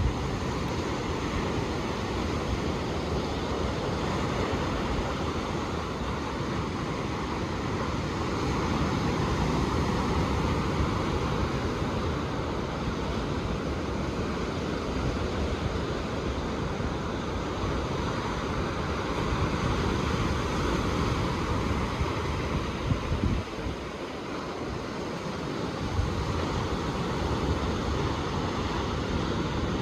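Ocean surf washing on the shore, a steady rushing wash that swells and eases, with wind rumbling on the microphone. The low rumble drops away briefly about three quarters of the way through.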